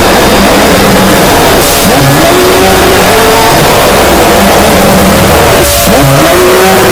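A very loud, heavily distorted mash of layered sound effects, a constant wall of noise with tones sliding up and down and what sounds like a car engine revving. Two brief hissing bursts come through, one near two seconds in and one about six seconds in.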